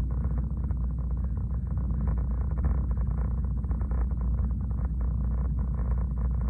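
Log truck's diesel engine idling: a steady low rumble with a fast throb, heard from inside the cab.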